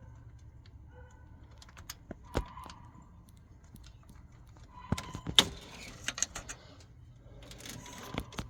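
Scattered light metallic clicks and clinks of a bolt and hand tools being handled while a timing chain tensioner is bolted on, with a cluster of sharper clicks about five seconds in.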